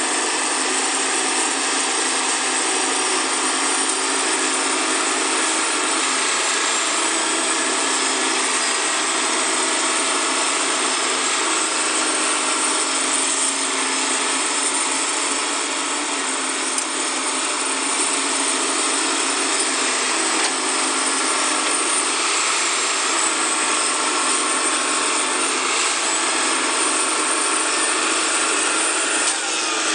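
Hitachi hydraulic excavator's diesel engine running steadily under load while it digs, its pitch drifting slightly up and down.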